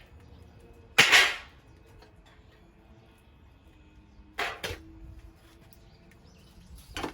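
A few sharp knocks or clatters: a loud one about a second in with a short rattling tail, two quicker ones close together around four and a half seconds, and a softer one near the end.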